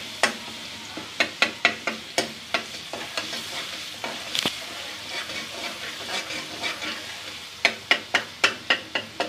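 Garlic-ginger paste sizzling in hot ghee while a spoon stirs it, clicking and scraping against the pot in quick strokes. The strokes come thickest in the first few seconds and again near the end, with a quieter stretch of sizzling between.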